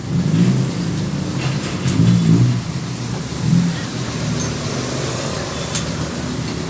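An engine running steadily with three short revs in the first four seconds.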